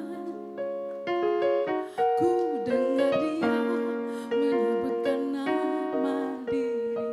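Electric piano playing a slow song, a sequence of chords and melody notes.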